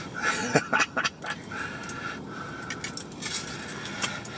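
Ice-fishing reel's drag buzzing in several short stretches as a hooked fish pulls line, with scattered clicks between.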